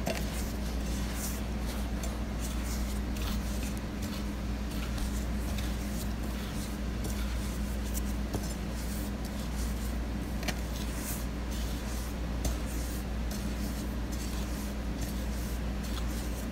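Fingers rubbing and mixing milk powder with butter on a plate: soft scratchy rustling with scattered light clicks against the plate, over a steady low hum.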